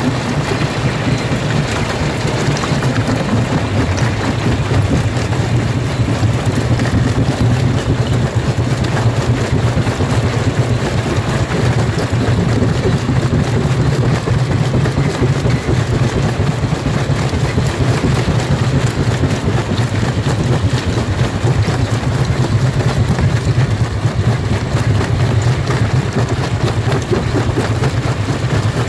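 Jaw rock crusher running steadily: a constant low drone of the machine under a dense, continuous crackle of stone being broken.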